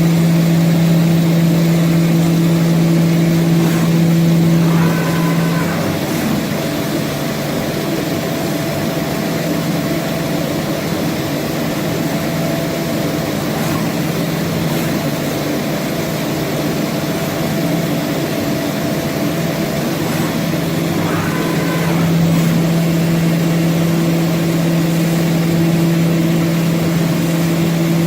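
HOMAG BOF 41/K CNC woodworking machining center running. A steady machine hum gives way about five seconds in to a rougher, noisier spell with a short whine, then returns with another short whine about six seconds before the end.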